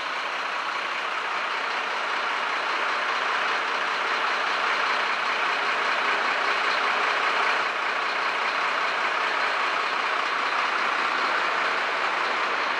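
Heavy work truck with a loading crane, its engine running steadily with a continuous rushing drone that dips briefly about halfway through.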